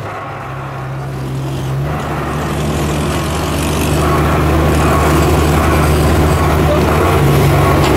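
Diesel engine of the Botchan Ressha replica steam locomotive running under load as the street tram moves along, a steady low hum that grows louder about halfway through.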